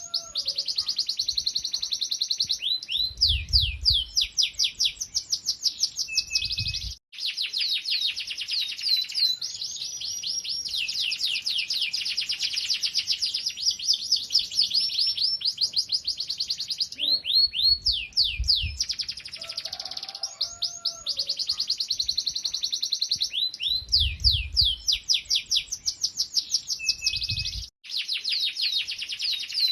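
Domestic canary singing vigorously in long rolling trills of rapidly repeated, sweeping high notes, with barely a pause. A low rumble sits under the song in two stretches.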